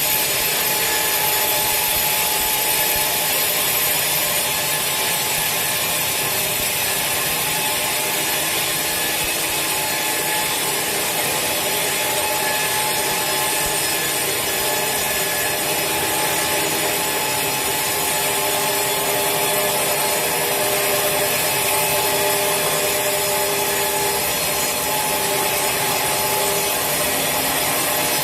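Sawmill saw cutting steadily through a large teak log, a continuous rasping noise with faint steady tones that drift slightly in pitch.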